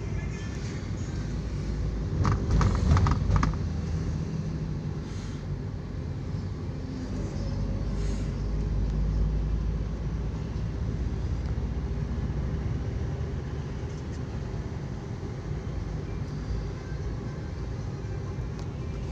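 Steady low road and engine rumble inside a moving taxi's cabin, with a brief louder burst about two to three seconds in.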